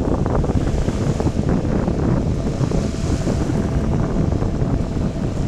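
Wind buffeting the microphone in a steady low rumble, with small lake waves washing onto the shore.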